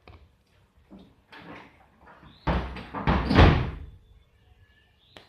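A loud scraping noise lasting about a second and a half, a little past the middle, among fainter knocks and rustles, with a sharp click near the end.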